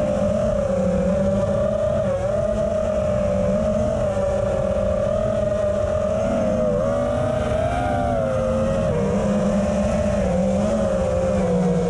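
FPV racing quadcopter's brushless motors and propellers whining in flight, as picked up by the onboard action camera's microphone. The whine is steady and its pitch wavers, dipping briefly a few times with throttle changes, over a low rumble.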